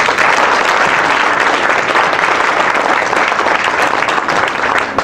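Crowd applause: many people clapping at once, a dense steady spatter of hand claps.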